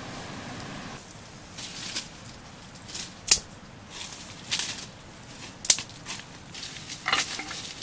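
Dry leaf litter crackling and rustling in short, irregular bursts as a stick is poked and scraped through it. There are two sharper snaps, about three and a half seconds in and again near six seconds.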